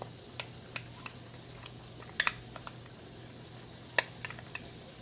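A spoon clinking and tapping against a bowl while yogurt and biryani masala are mixed: a string of sharp clinks, the loudest a quick double about two seconds in and a single one about four seconds in, over a low steady hum.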